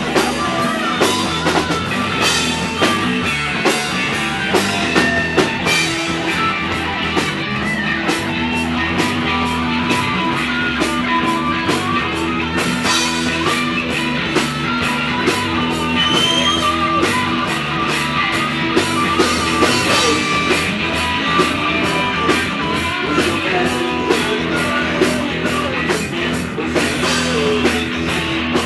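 Live rock band playing: distorted electric guitar over a drum kit with steady cymbal hits, bass underneath.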